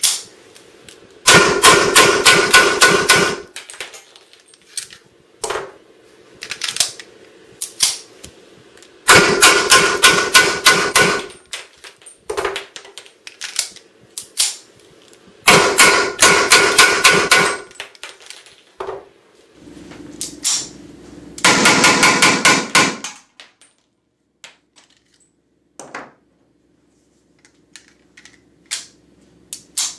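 Weihrauch HW94 blank pistol firing SK Schönebeck 9 mm P.A.K. blank cartridges in four rapid strings, each emptying a magazine in about two seconds, with the muzzle held into a padded box. Between the strings come scattered single clicks of handling and reloading.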